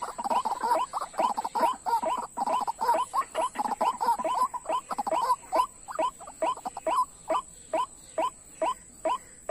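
White-breasted waterhen calls: a fast series of short harsh notes, each falling in pitch. The notes crowd and overlap for the first five seconds, then settle into an even run of about three a second.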